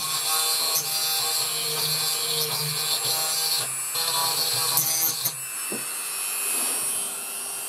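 Dremel rotary tool running steadily, grinding down hardened glue on a plastic case to level it. The motor's whine holds steady under a gritty grinding hiss, which grows lighter about five seconds in.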